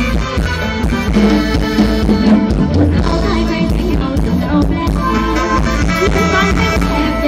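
A live band playing Isan luk thung music, with a steady drum beat under electric guitar and keyboard-style melody lines.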